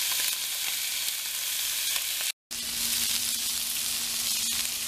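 Beef short ribs sizzling steadily as they brown in a hot nonstick pan. After a short break, chopped onion sizzling as it sautés, with a faint steady hum underneath.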